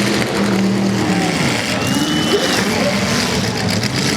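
Demolition derby car engines running and revving together in a steady din, with a brief high-pitched tone about two seconds in.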